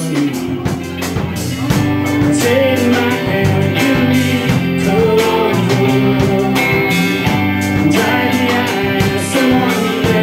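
Live rock band playing: electric guitars and drum kit with a steady beat, and a bending melodic line from a voice or lead guitar over it.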